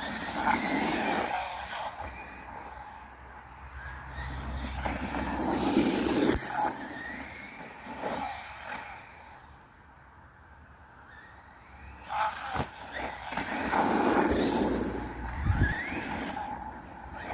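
Brushless electric motor of a small 1:10 RC truck whining in repeated surges as the throttle is worked, one rising in pitch near the end, with a few sharp knocks of the truck hitting the ground off small jumps.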